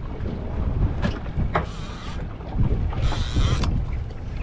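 Wind buffeting the microphone over the low rumble of the boat's outboard motor idling in neutral, with a few clicks and two short hissing bursts.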